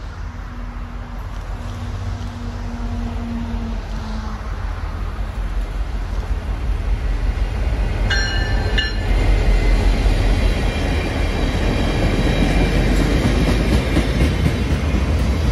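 EMD GP40 diesel locomotive approaching and passing close by, its engine rumble growing louder, followed by the wheels of loaded flat cars rolling past on the rails. A brief high-pitched tone sounds about eight seconds in, as the locomotive goes by.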